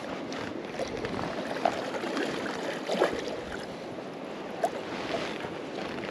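River water running and gurgling steadily, with a few short watery plops about a second or so apart.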